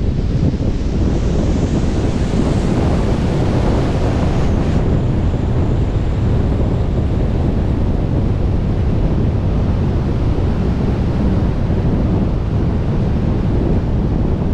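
Steady, loud rush of air over the camera microphone as a wingsuit flies at speed.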